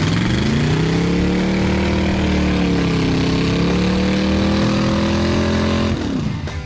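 Square-body Chevy pickup's 283 small-block V8 revved up hard and held at high revs for about six seconds while the rear tyres spin on wet pavement with a loud hiss, then the revs drop away near the end. This is a burnout.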